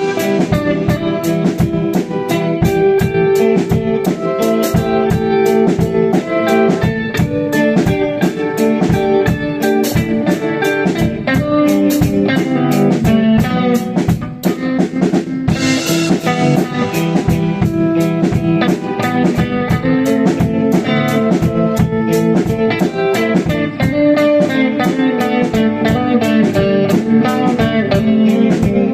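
Rock band jamming: electric guitar and bass playing sustained, repeating notes over a drum kit keeping a fast, steady beat.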